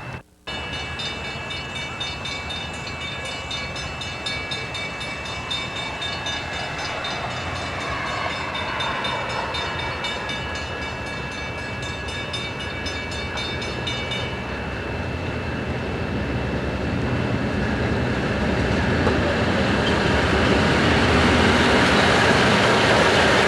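A train approaching and getting steadily louder, its rumble swelling to its loudest near the end. Through the first half, a grade-crossing bell rings at an even beat, stopping about two-thirds of the way in.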